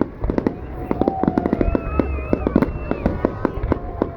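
Fireworks exploding in a rapid string of sharp pops and crackles over a low rumble, with several held, gently gliding high tones over them.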